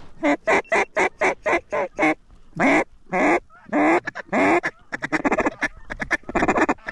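Duck call blown hard in a mallard calling sequence: a fast string of short quacks, four longer drawn-out quacks falling in pitch, then rapid feed chatter from about five seconds in. The hunter is calling to incoming ducks to bring them into the decoys.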